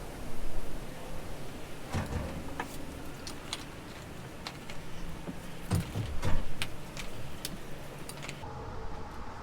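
Metal hand tools and engine parts clinking and knocking against each other in scattered taps and clanks, with a few duller thumps; the loudest knock is about six seconds in.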